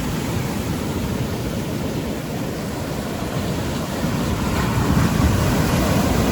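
Ocean surf washing onto a beach, with wind buffeting the microphone as a low rumble; the surf swells louder about four seconds in.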